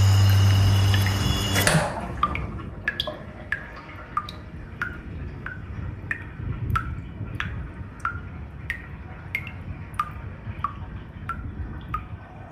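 Music stops about two seconds in. Then water drips steadily, each drop a short plink, about one and a half drops a second.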